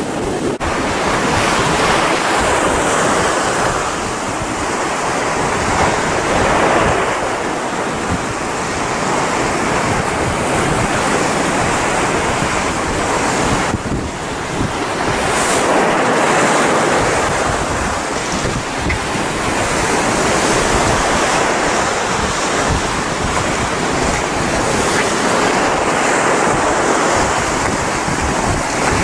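Breaking waves and churning surf, swelling and easing every few seconds, with wind buffeting the microphone.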